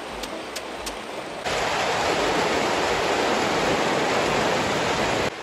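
Rain falling steadily, a dense even hiss that comes in abruptly about a second and a half in and cuts off just before the end; before it, only a fainter background hiss.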